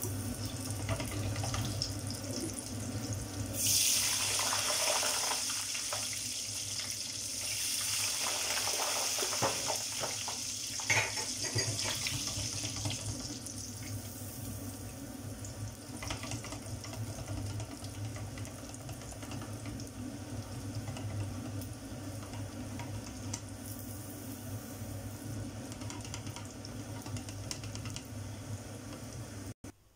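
Strips of pork skin deep-frying in hot oil, a steady hissing sizzle that swells louder for a couple of seconds about four seconds in, with a few metal clinks of the wire frying basket near the middle.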